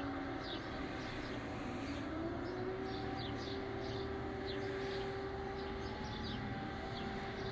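Civil defense air-raid siren wailing: a long held tone that rises about two seconds in and then holds steady, with short high chirps heard over it.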